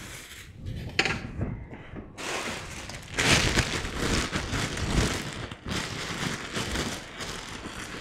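Plastic bags rustling and crinkling as vegetables are handled in a refrigerator crisper, with a light knock about a second in.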